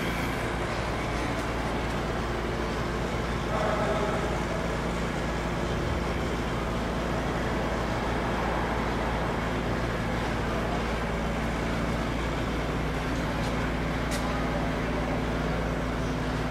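Clausing Colchester 25-inch engine lathe running, a steady mechanical hum from its spindle drive and gearbox; the pitch of the hum shifts slightly about twelve seconds in.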